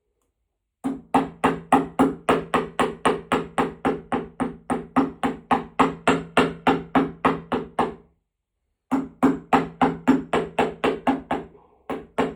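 Hammer blows on an anvil, forging a silverpoint stylus: a steady rhythm of about four ringing strikes a second. The hammering stops for about a second, starts again, and ends with a couple of separate blows.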